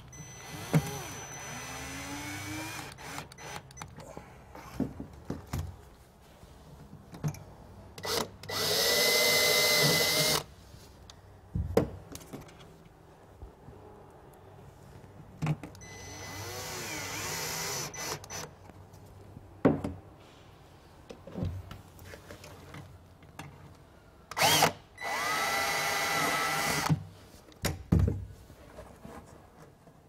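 Cordless drill driving stainless steel mounting screws into a boat's switch panel. Two loud runs of about two seconds each carry a steady motor whine, with quieter, slower starts before each and scattered handling clicks between them.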